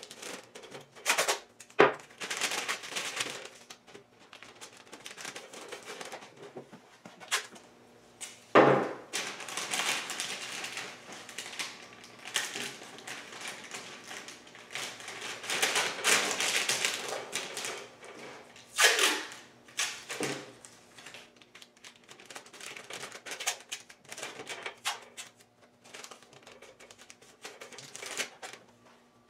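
Masking tape being pulled off the roll in short rasping rips and pressed down along the edge of masking paper, with paper crinkling and a few sharper knocks between pulls.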